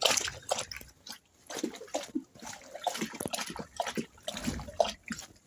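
Rainwater dripping and splashing in irregular small splashes.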